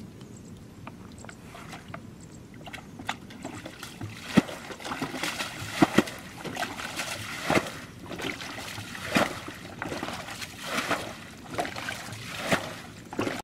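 Muddy ditch water sloshing and splashing; from about four seconds in, a splash comes about every second and a half as water is scooped and thrown out with a bucket.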